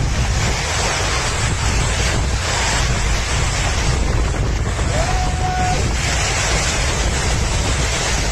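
Loud, steady storm noise: wind rumbling on the microphone over a rush of water.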